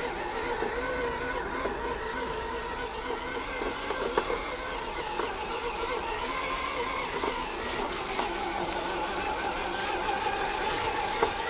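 Electric drive motor and gearbox of a 1/12-scale Fayee FY004A 6x6 RC truck whining steadily as it drives, the pitch shifting a little with speed, over the crackle of its tyres on dry leaves and a few sharp clicks.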